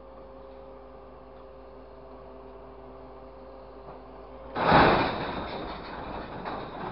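Grapple truck holding a load of scrap metal with a faint steady hum of engine and hydraulics, then, about four and a half seconds in, the scrap is dropped into the steel truck bed: a loud crash of metal on metal that dies away over a couple of seconds with smaller knocks.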